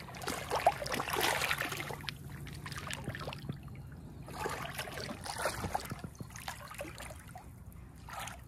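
Shallow water splashing and trickling as a large redfish is held in the water and released by hand, in irregular spells with the most splashing in the first two seconds and again midway.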